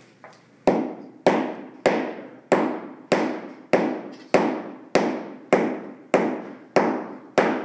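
Steady hammering on hardwood flooring: twelve evenly spaced blows, a little under two a second, each ringing briefly in the room, as a board is knocked into place.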